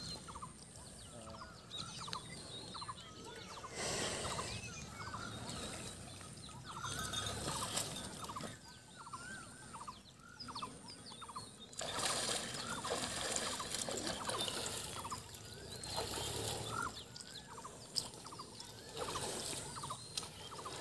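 Water splashing and sloshing as water buffaloes wallow in a muddy pond, rising in several surges, while a bird calls over and over in short wavering notes.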